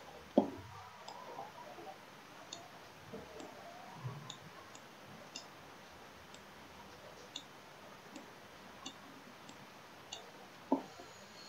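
Faint, irregular clicks of a computer mouse being clicked and dragged, with a louder sharp click about half a second in and another near the end.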